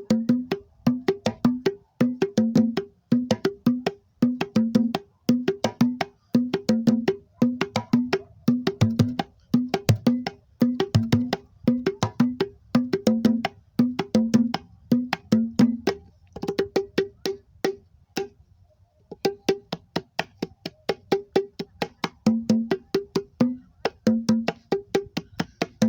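Handmade wooden box drums (cajones built to stand in for conga or batá drums) played by hand in a steady, fast rhythm. Strokes alternate between a lower and a higher tone. Playing stops briefly about eighteen seconds in, then starts again.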